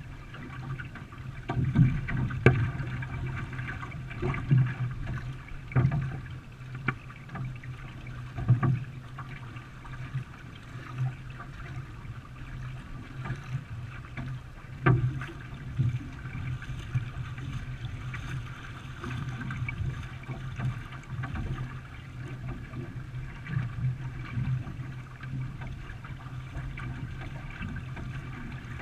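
A canoe being paddled: water noise with irregular knocks from the paddle strokes against the hull, every second or two, over a steady low hum.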